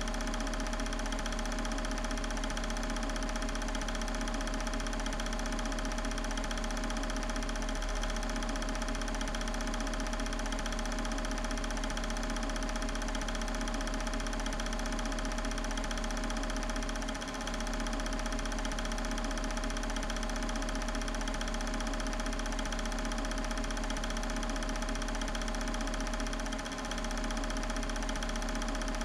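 Film projector running steadily while home-movie footage plays, a continuous mechanical whir with a fast, even clatter.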